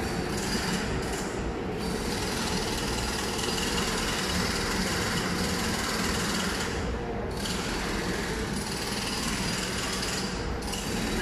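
Steady, continuous rumble and rattle of an MRT train running on the elevated concrete viaduct track.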